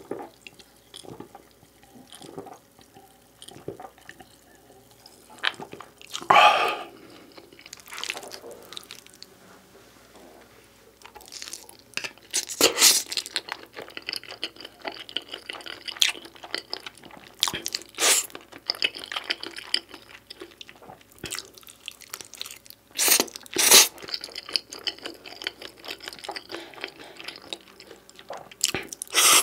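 Close-miked chewing of beef pizza, with wet mouth clicks and crunchy bites. Louder bursts come about 6 seconds in, around 13 seconds and again around 23 to 24 seconds.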